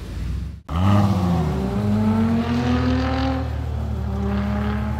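Ferrari F430's V8 engine pulling away in a low gear. Its pitch rises for about two and a half seconds, then holds steady. The engine starts just under a second in.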